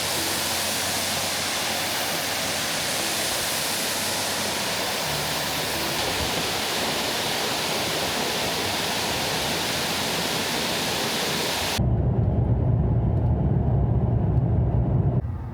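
Waterfall: a steady roar of falling water. About twelve seconds in it cuts off abruptly, and a low, steady vehicle rumble with little treble takes over.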